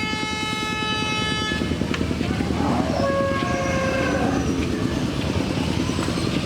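A vehicle horn sounding one steady note for about two seconds, with a second, shorter horn-like tone about three seconds in, over the continuous low rumble of a nearby engine running.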